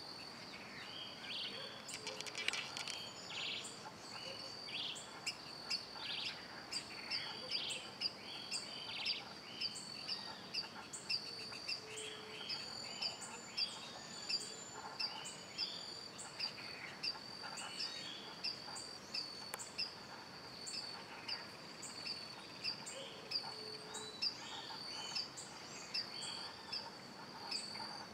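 Birds chirping and calling over a steady high insect drone, with one sharp chirp repeating about one and a half times a second from a few seconds in.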